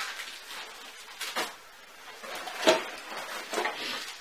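Cardboard and plastic wrap rustling and knocking as a satellite speaker is unpacked by hand: three short bursts, the sharpest nearly three seconds in.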